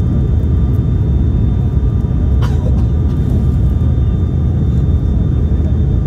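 Steady rumble of airliner cabin noise, engines and airflow, while the plane descends on approach to land, with a faint thin whine over it. One short sharp sound about two and a half seconds in.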